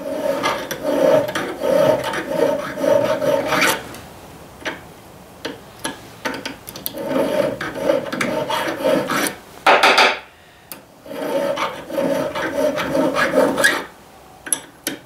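Hand file rasping in quick back-and-forth strokes on the soft brazed filler around a tractor clutch rod's pin hole, shaving it down to fit the pin. The filing comes in three bouts, with a short sharp clatter a little under ten seconds in.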